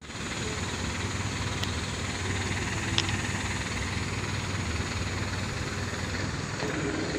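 Boom truck engine running steadily with a low hum, and a light click about three seconds in.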